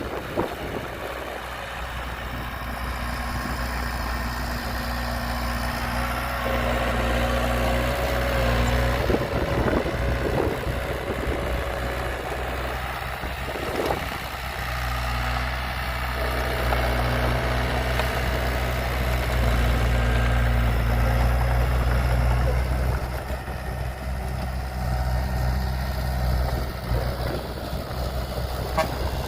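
Diesel engine of heavy earthmoving machinery running with a steady low drone. It eases off for a few seconds near the middle, then picks up again.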